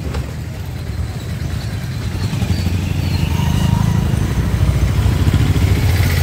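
Street traffic: a motor vehicle's engine runs close by with a steady low hum that grows louder from about halfway through.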